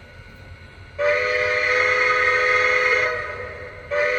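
Lionel Legacy 2-8-0 model steam locomotive's onboard sound system playing its sampled whistle: a long chord-like blast of about two seconds starting a second in, then a second blast near the end.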